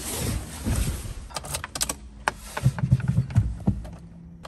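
Car keys jingling and clicking in the hand and in the ignition of a Smart Forfour as the ignition is switched on, a quick run of sharp clicks followed by a few low thuds.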